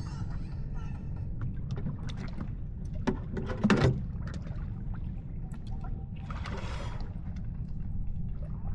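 Water gurgling and lapping around a small fishing boat over a steady low rumble, with a brief louder splash-like sound about three and a half seconds in.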